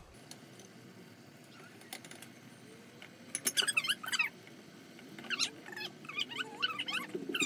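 Squeaky scraping as a wooden spoon stirs shredded raw cabbage in a pot. It comes in two bursts, a short one about three seconds in and a longer one about two seconds later.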